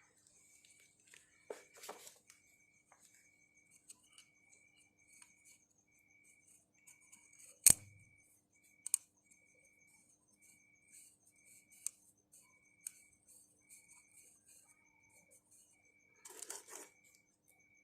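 Scattered clicks and light clinks of hand tools and parts being handled, with one sharp knock about eight seconds in and a brief rustle near the end. Behind them, a steady, evenly pulsing chirp of insects.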